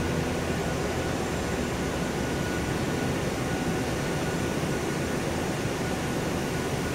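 Steady industrial machinery hum with a faint high whine, constant throughout with no distinct strokes or clicks.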